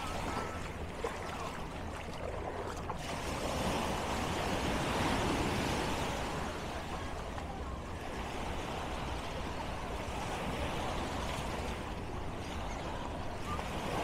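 Surf on a beach: waves breaking and washing in as a steady rush, swelling a little about four seconds in.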